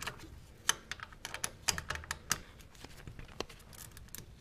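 Irregular light clicks and taps of a hand wrench working the 10 mm oil-filter cover bolts on a Suzuki LT230S Quadsport's engine case as they are loosened.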